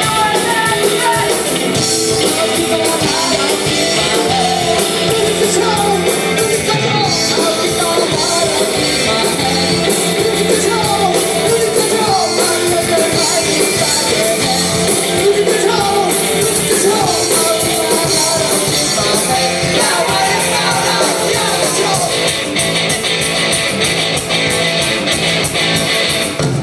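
Alternative rock band playing live: electric guitar, drums and a singing voice, loud and dense.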